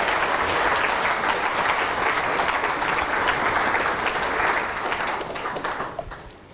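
Audience applauding at the end of a lecture, a dense patter of many hands clapping that fades out near the end.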